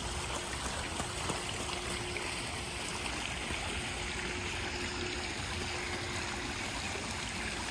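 Steady rush and trickle of water spilling over the edge of an infinity pool.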